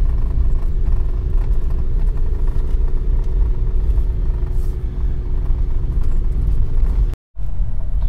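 Car driving on a dirt road, heard from inside: a steady low rumble of engine and tyres with a faint even hum. The sound drops out completely for a moment about seven seconds in.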